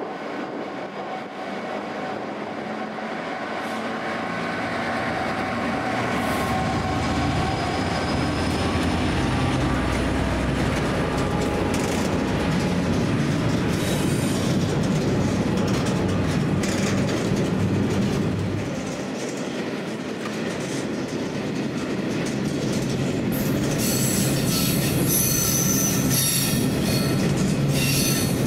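A DB Cargo freight train passing: the rumble grows louder as it approaches, then the wagons' wheels click over rail joints. From a few seconds before the end, high-pitched wheel squeal sets in.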